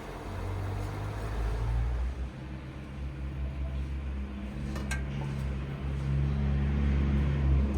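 Low, steady engine hum, like a motor vehicle running, growing louder toward the end, with a single sharp clink about five seconds in.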